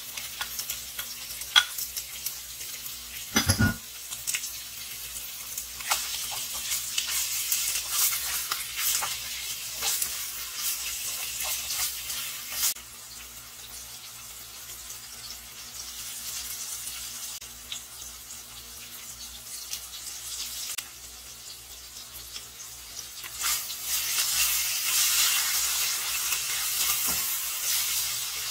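Ground pork and diced onion sizzling as they fry in a granite-coated nonstick pan, with a plastic slotted spatula scraping and stirring them in stretches. One dull thump about three and a half seconds in.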